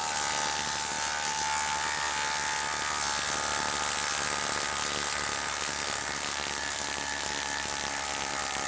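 Milwaukee M12 Fuel brushless impact driver hammering steadily in reverse, backing a 6-inch, half-inch lag screw out of wood.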